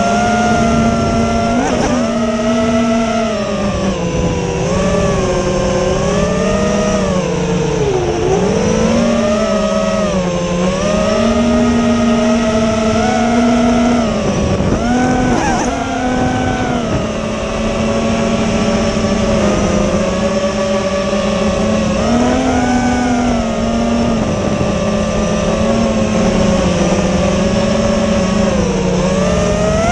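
FPV quadcopter's motors and propellers whining steadily, the pitch rising and falling again and again with the throttle.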